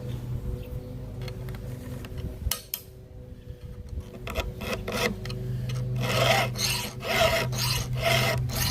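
A file being stroked by hand across the cutting teeth of a chainsaw chain clamped in a vise, sharpening it. The strokes are sparse and quieter at first, then come regular and louder from about halfway through, two to three a second.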